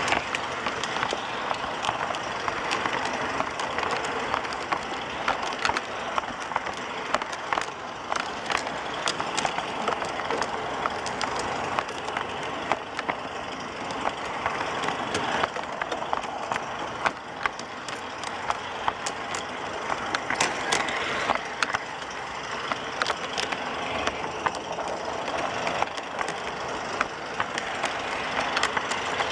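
G-scale model rail vehicles rolling along garden railway track: a steady rolling rush with frequent short, sharp clicks throughout.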